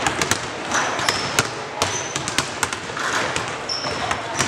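Basketballs bouncing on a hardwood gym floor, many irregular bounces, with a few short high sneaker squeaks.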